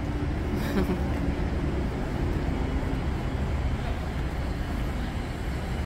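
Street ambience: a steady low rumble of city traffic.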